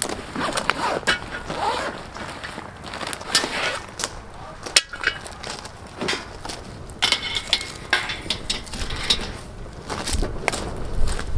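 A zippered padded carry case being handled and opened, with rustling and a string of short clicks and knocks as the cast-iron pot-lid griddle is taken out and set down on dry grass.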